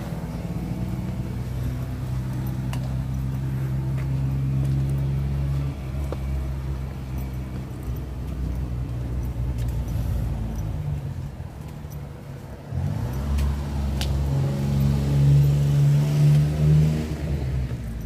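A motor vehicle's engine running with a steady hum. It eases off, then picks up again with a rise in pitch a little past halfway, and drops away near the end. A few sharp clicks sound over it.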